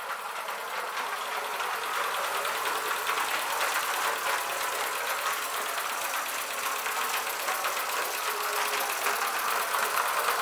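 Mamod Brunel vertical-boiler live steam locomotive running under steam with a short train, its exhaust beating fast and evenly over a steady hiss.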